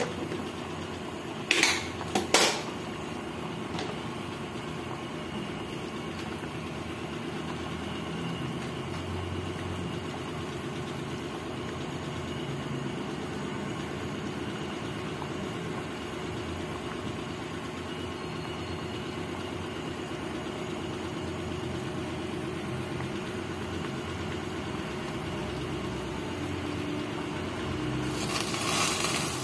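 Coconut-milk adobo simmering in a nonstick pan: a steady bubbling hiss over a constant low hum. Two sharp clicks come about two seconds in, and near the end there is a louder rush as the spoon stirs the pan.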